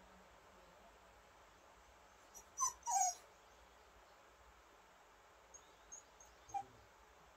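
A dog whining: two short high whines that slide down in pitch about three seconds in, then a fainter one later.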